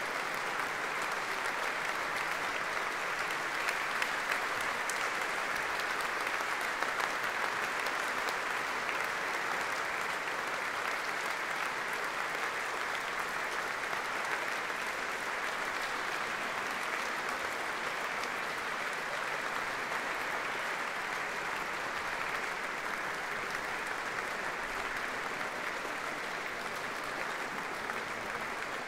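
Concert audience applauding steadily, dense clapping in a reverberant church hall, easing slightly near the end.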